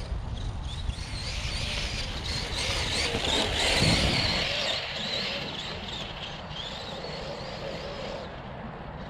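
Brushless electric motor of a Losi 3XL-E RC truck (a Hobbywing 2250kv) running under throttle: a high whine that wavers up and down in pitch over rushing noise, swelling to its loudest about four seconds in and then easing off.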